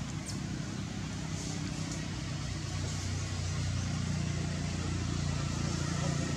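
Low, steady engine hum over a constant hiss, growing a little louder a few seconds in.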